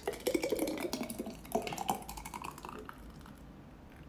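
Thick blended ginger-garlic-cilantro paste poured from a plastic blender jar into a glass jar: a quick run of clicks, knocks and wet plops, busiest for the first two seconds, then trailing off.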